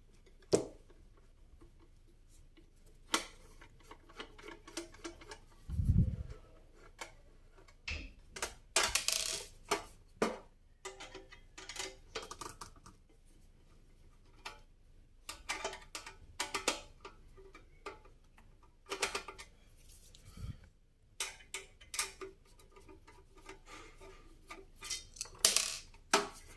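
Screws being taken out of a DVR recorder's case by hand: scattered small clicks, scrapes and handling knocks, with a low thump about six seconds in and another about twenty seconds in.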